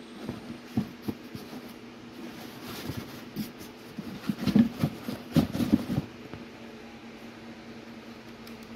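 Cardboard gift box being handled and its lid lifted off, with scuffs and knocks bunched in the middle and two sharp knocks near the start. A steady low hum runs underneath.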